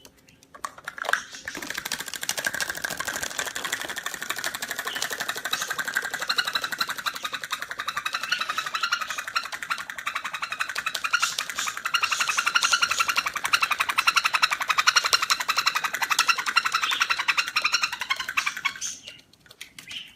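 A bird making a fast, continuous chattering trill that starts a moment in and stops near the end.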